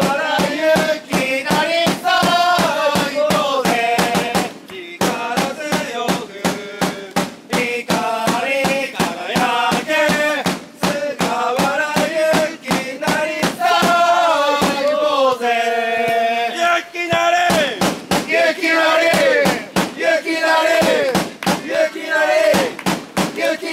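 Football supporters chanting in unison to a steady drum beat, about three beats a second. Partway through, the drumming thins out while the group holds a long note, then the beat and the chanting pick up again, ending on a falling shout.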